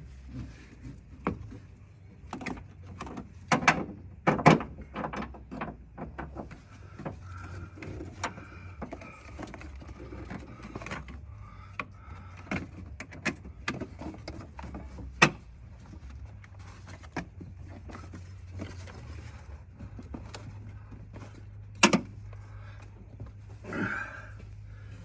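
Irregular clicks, knocks and light clanks of hand work, loudest a few seconds in, again about midway and once near the end, over a low steady hum.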